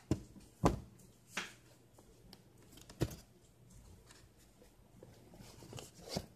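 Sneaker being handled in its cardboard box with paper wrapping: about five sharp knocks and taps, the loudest about two-thirds of a second in and near three seconds, with light rustling between.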